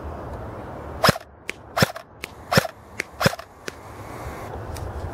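Airsoft M8 Oberland rifle firing single shots: four sharp cracks about three-quarters of a second apart, each followed by a fainter click.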